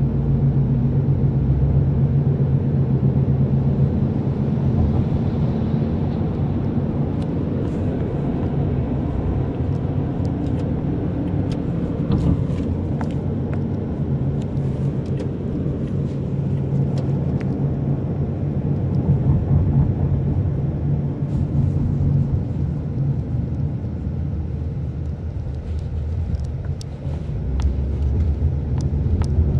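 Engine and road rumble heard inside a moving taxi's cabin: a steady low hum with a few faint clicks, dipping briefly and rising again near the end.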